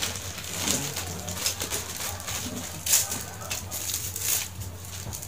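Plastic mailer bags and packaging rustling and crinkling as they are handled and unwrapped, in irregular crackles with a louder crinkle about three seconds in, over a steady low hum.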